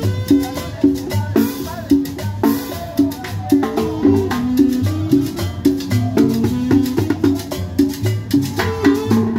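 Live Latin dance band playing salsa: an upright double bass plays a repeating bass line under conga drum and hand percussion at a steady, danceable beat.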